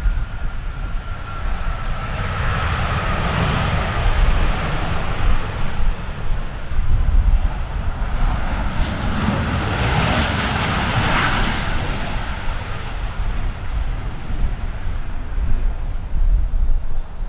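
Jet airliner's engines passing by: a roar that swells to its loudest about ten seconds in and then fades, with a whine that falls slowly in pitch over the first few seconds.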